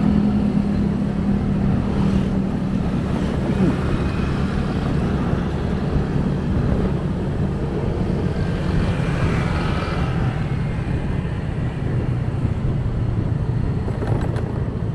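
Motorcycle engine running while riding in traffic, a steady low engine hum under road and wind noise; the hum settles lower about ten seconds in.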